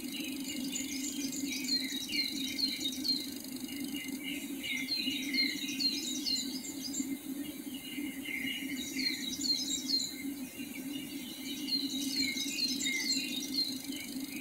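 Rapid, high chirping calls from several callers overlapping in repeated runs, thinning briefly in the middle, over a steady low hum.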